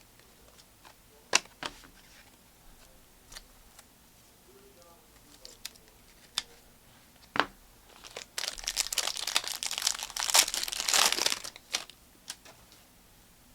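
Foil trading-card pack wrappers crinkling and tearing open, with scattered clicks and taps as cards are handled. A longer stretch of dense crinkling comes from about eight to twelve seconds in.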